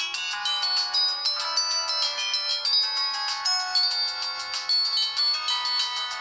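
Polyphonic ringtone from a 2004 O2 X2 mobile phone, a quick melody of short electronic notes with several sounding at once.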